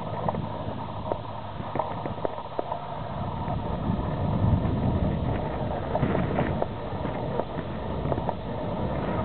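Wind buffeting the microphone, heavier from about four seconds in, over scattered light clicks and tinkles of broken shore ice shifting at the water's edge.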